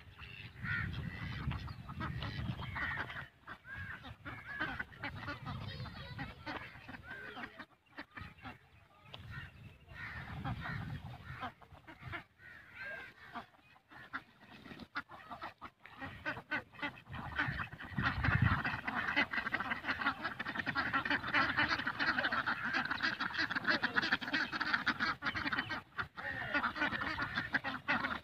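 A flock of domestic ducks quacking, many calls overlapping, growing louder and busier about two-thirds of the way through.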